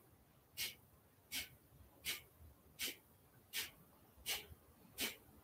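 Kapalabhati breathing: short, forceful exhalations through the nose, a sharp puff about every three-quarters of a second, seven in all.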